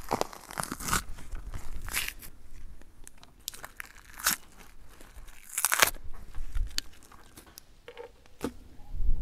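Knife cutting and hands tearing fat and membrane off a raw bone-in beef rib section on a wooden cutting board: an irregular run of sharp, crisp scrapes and tears, loudest about two thirds of the way through and again near the end.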